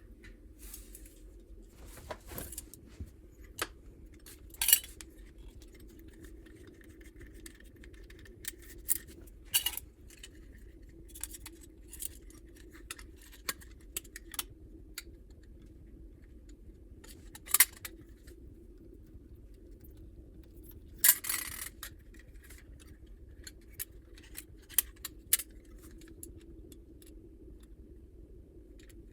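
Scattered small metallic clicks and clinks from hand tools and small metal hardware being handled during electrical wiring work, with a few sharper clacks now and then. A faint steady hum runs underneath.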